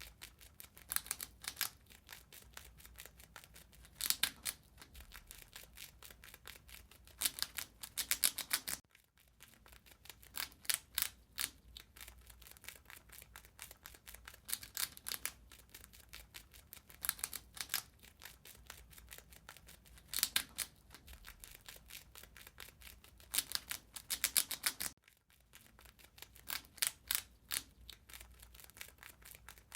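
Rat gnawing and chewing food: rapid, crisp clicking and crunching that bunches into louder bursts every few seconds, with two brief breaks.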